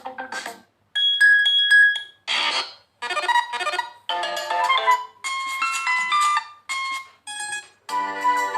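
Built-in ringtones of a Lava Z6 phone previewed one after another through the phone's speaker: about eight different short melodic snippets, each cut off after half a second to a second as the next tone is selected.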